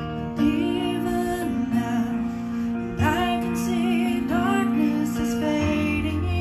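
Slow worship song: an electronic keyboard plays sustained chords while a woman sings held notes with vibrato over it.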